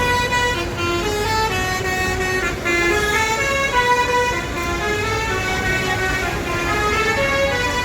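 Basuri telolet bus horn playing a quick tune of stepped notes, about two or three a second, over a running bus engine.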